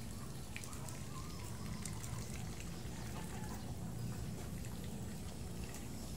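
Ducks feeding on wet chopped fermented banana trunk, their bills pecking and dabbling in a scatter of small clicks and wet sounds over a steady low hum.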